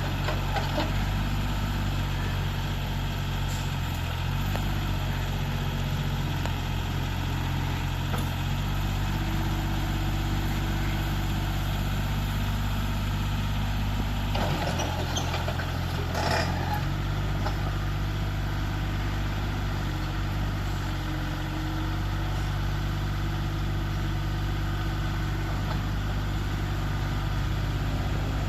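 Yanmar YB1200SS mini excavator's diesel engine running steadily as the machine works. About halfway through, its note shifts briefly and there is a short rattle.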